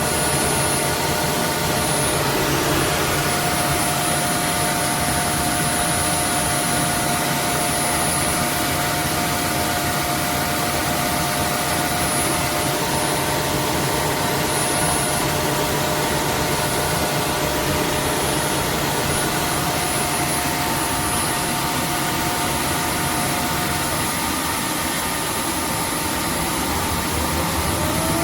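Roborock F25 cordless wet-dry vacuum running with a steady motor whine and airflow noise. One of its tones drops out about three-quarters of the way through, and a rising tone comes in near the end.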